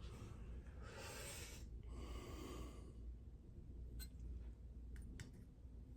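Knife blade drawn across a sharpening stone in two hissing strokes, followed by a few light clicks.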